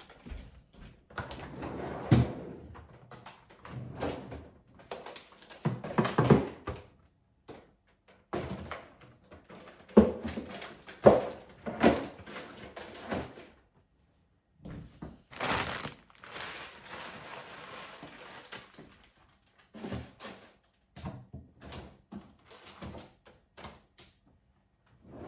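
Freezer bins and frozen food packages being put into a home freezer: an irregular run of knocks, thumps and slides of plastic bins and boxes against the shelves, with a few seconds of steady rustling partway through.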